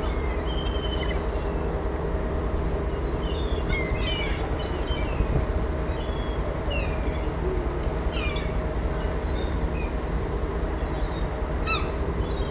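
Seagulls giving short, high, repeated cries over the steady low drone of a ferry's engine.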